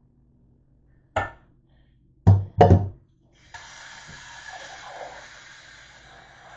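Three knocks from a metal pot being handled, the second and third the loudest. Then, from about three and a half seconds in, a kitchen faucet runs water into the sink and into the pot.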